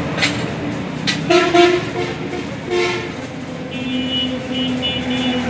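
A vehicle horn sounding in street traffic: a few short sounds early on, then a steady horn tone about four seconds in that breaks off twice and starts again.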